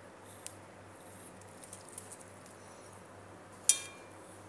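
Stainless steel watch bracelet and butterfly deployant clasp being handled: a few light clicks, then one sharp metallic click with a brief ring near the end.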